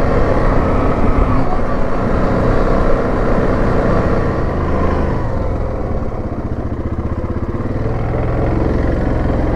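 Yamaha Grizzly 700 ATV's single-cylinder engine running as it rides along a dirt trail, easing off a little past the middle and picking up again near the end.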